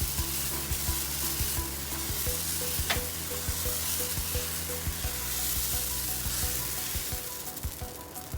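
Pearl millet dosa batter sizzling on a hot tawa as it is spread out with a ladle, with light scraping clicks from the ladle, one sharper one about three seconds in.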